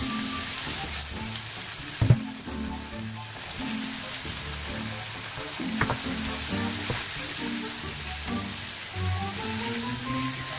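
Diced onion sizzling in a hot oiled wok as a silicone spatula stirs it, over background music. A sharp knock about two seconds in, and a few smaller knocks just before the middle as diced ham and green pepper go into the pan.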